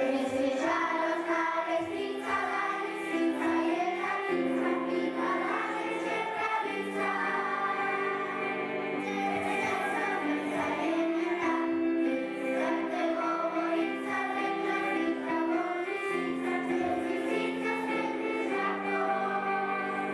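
A song: a group of voices singing together over held instrumental accompaniment.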